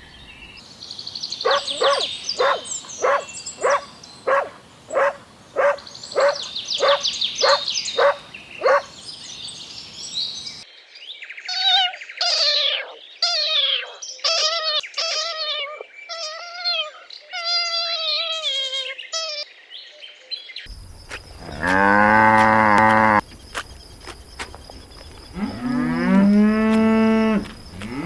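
Farm animal calls in quick succession: first a regular pulsing of about two calls a second under high chirping, then a string of short chirping calls, and in the last third cattle mooing twice, long and low.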